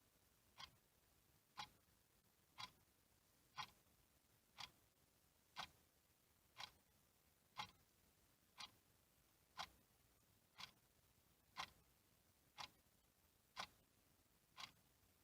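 Faint clock ticking, one short tick every second, with near silence between the ticks.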